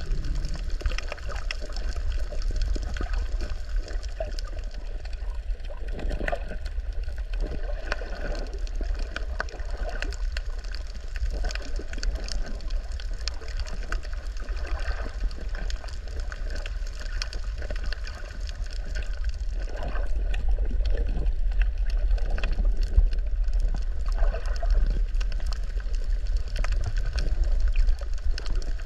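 Underwater sound picked up by a camera below the surface: a steady low rumble of moving water with a fine crackle of clicks throughout, swelling every few seconds.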